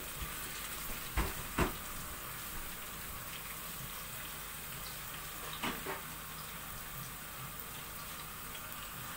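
Oil sizzling steadily in an aluminium pot with fried onions, green chillies and freshly added tomato slices. Two short knocks come a little over a second in.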